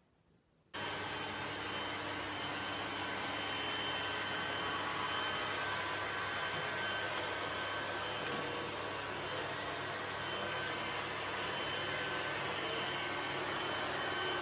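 Robot vacuum cleaner running: a steady whirring hiss with faint steady tones, starting suddenly under a second in.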